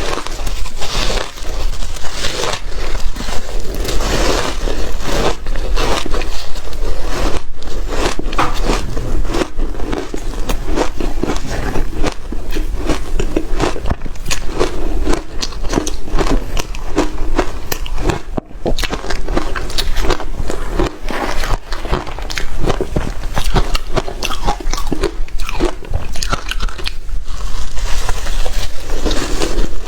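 Close-miked crunching and chewing of hard shaved ice, a dense run of crackly bites and grinding throughout.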